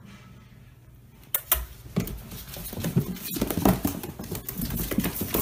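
A litter of young puppies squeaking and whimpering as they wake, with small paws scrabbling on a plastic bin. It starts about a second in and soon turns into a busy chorus of short squeaks.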